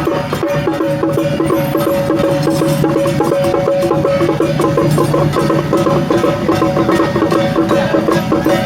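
Traditional temple festival music: rapid, even percussion beats, about ten a second, over a steady held tone.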